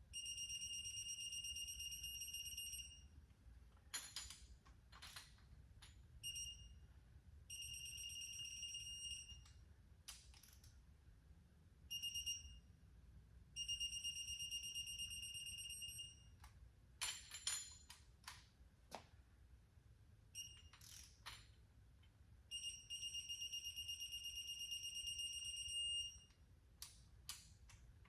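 Electronic torque wrench giving a steady high-pitched beep, held one to three seconds each time, six times over: the signal that a cylinder head bolt has reached its set torque. Between the beeps come short clicks and knocks from the wrench being moved to the next bolt.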